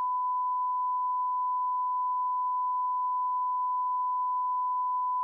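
Television test-card tone: a steady pure beep held at one unbroken pitch.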